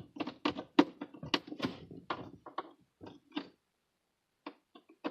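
A quick run of light clicks and taps, stopping after about three and a half seconds, then a few more single clicks near the end.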